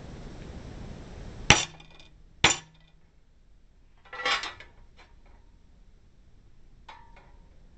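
Two sharp metallic strikes about a second apart, each with a brief ring, as a center punch marks drill-hole positions in the metal awning support arm. A softer clatter follows a couple of seconds later, and a light tap comes near the end.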